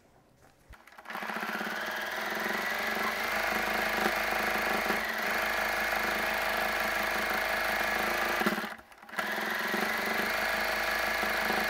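Domestic sewing machine running steadily at speed while free-motion quilting through a quilt. It starts about a second in, stops briefly near nine seconds, then runs on.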